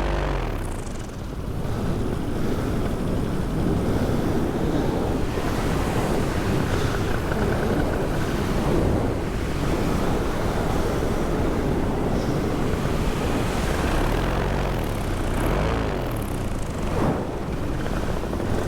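Heavy wind rushing over the microphone, with the paramotor's engine and propeller running faintly beneath it and its pitch briefly showing through about two-thirds of the way in.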